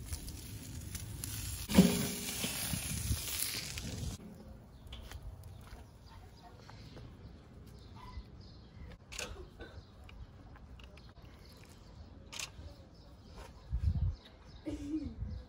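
Kettle grill's metal lid closing with a single clank over a steady hiss that cuts off about four seconds in. Then scattered light clicks and taps of a knife and fork on a wooden board, with a few soft thumps near the end as the fork cuts into the fish.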